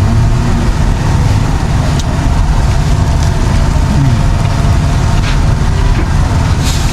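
An engine running steadily with a loud low rumble, with a few faint clicks over it.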